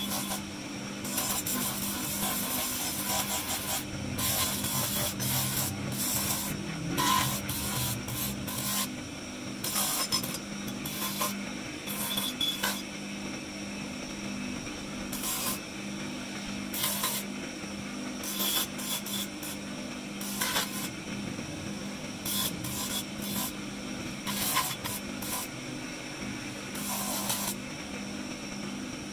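Spinning abrasive grinding wheel with a steady hum. Marble is ground against it in repeated short rasping bursts every second or two.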